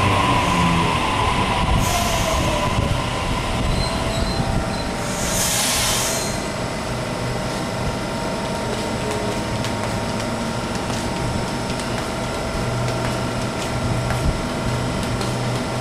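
Double-deck electric passenger train braking to a stop at the platform. A falling whine and wheel squeal come from the slowing train, with two sharp air hisses about two and six seconds in, then a steady hum as it stands.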